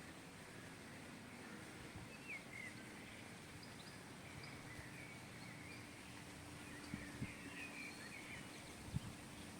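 Faint outdoor ambience with small birds chirping off and on, a few short calls around two seconds in and a busier patch near the end. Some soft low thumps come in the last few seconds.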